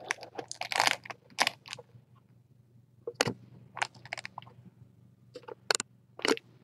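Irregular sharp clicks and crunches, a quick cluster in the first second and a half and then scattered single ones, over a faint steady low hum.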